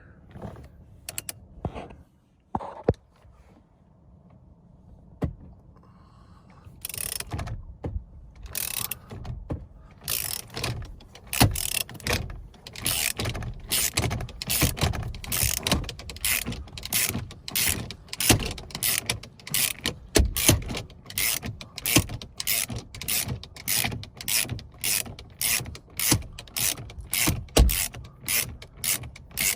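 Hand ratchet with a T50 Torx bit backing out a steering wheel retaining bolt: a few scattered clicks at first, then steady ratcheting strokes, about two clicks a second, from about seven seconds in.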